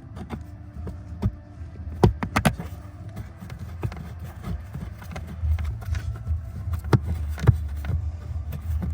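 Clicks and knocks of a screw and screwdriver working against a plastic under-dash trim panel as the screw is fitted back in, with a cluster of sharp knocks about two seconds in and again around seven seconds in. A steady low hum runs underneath.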